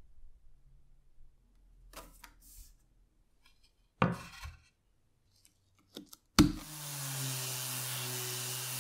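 A wooden board knocks down onto the workbench about four seconds in; about two seconds later a Graphite orbital sander switches on with a sharp click and runs steadily, rough-sanding the old board with 100-grit paper.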